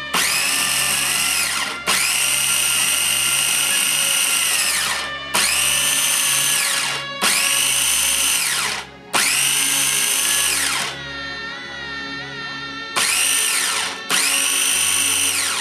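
Food processor motor whining through a thick green herb pesto, switched on and off in about seven bursts of one to three seconds. Each burst starts abruptly, and its whine slides down in pitch as the blade spins down. There is a longer pause of about two seconds before the last two bursts.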